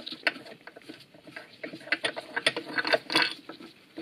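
Irregular metallic clicks, taps and rattles from bolts, hand tools and a lifting chain being handled around an aluminum transmission case on a steel workbench, busiest in the second half.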